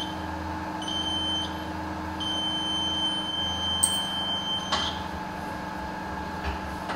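Vertex electronic edge finder's buzzer beeping as its ball probe makes contact with the vise jaw: a short beep about a second in, then a longer beep of about two and a half seconds that stops with a click near five seconds in. A steady low hum runs underneath.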